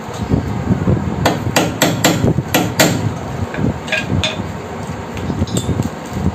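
Hammer striking a fastener through a metal drawer channel into the wooden side panel of a wardrobe, fixing the channel in place. About six sharp blows in quick succession, then a few lighter taps.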